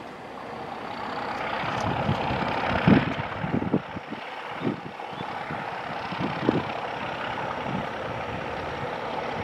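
Class 31 diesel locomotive's English Electric V12 engine working hard under power, a steady rumble that builds over the first few seconds. Gusts of wind thump on the microphone several times, the loudest about three seconds in.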